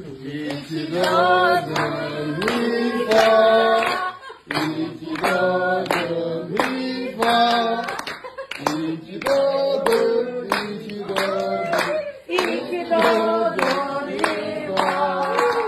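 A small group of voices singing a birthday song in four lines, with rhythmic hand clapping keeping time.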